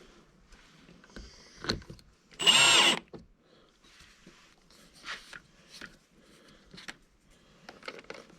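Cordless drill running in one short burst, a bit over half a second long, about two and a half seconds in, with light clicks and knocks from handling parts around it.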